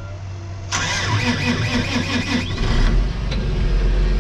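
Tractor's diesel engine being cranked by the starter, pulsing for about two seconds, then catching and settling into a steady idle.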